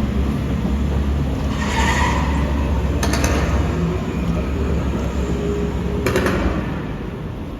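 Studio tour tram running with a steady low rumble, joined by a couple of short rushing noise swells.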